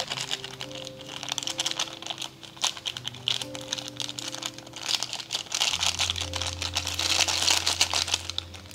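Background music with slow held notes, over a fast, irregular crackle of small ticks as instant ramyun seasoning flakes are shaken from their packet into simmering broth.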